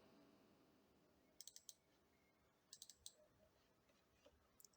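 Faint computer mouse clicks, two quick runs of about three clicks each, with a couple more near the end.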